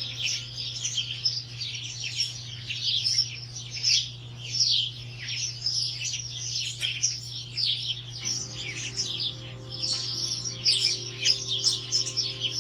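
Many small birds chirping and twittering at once: a dense, unbroken chorus of short, quick calls, over a steady low hum.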